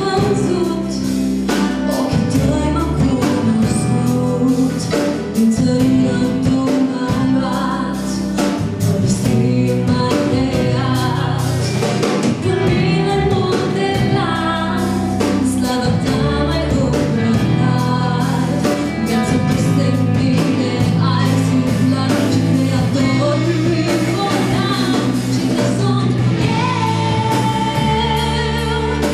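A woman sings a Romanian worship song live with a full band: electric guitar, bass guitar, drum kit and keyboard.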